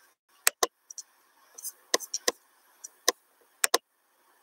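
A series of sharp clicks at irregular intervals, several coming in quick pairs, over a faint hiss.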